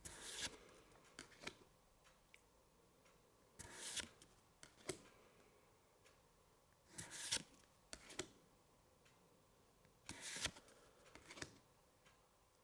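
Pokémon trading cards handled one by one, slid and flipped over, making four short papery swishes about three seconds apart with faint light taps between.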